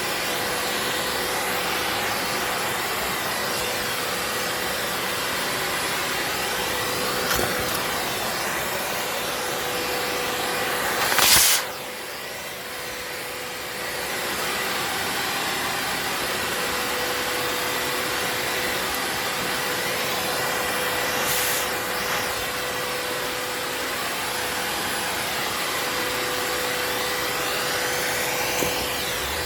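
Vacuum cleaner running steadily with a constant whine. About eleven seconds in there is a brief loud swish, after which the sound goes quieter and duller for about two seconds. A weaker swish comes near twenty-one seconds.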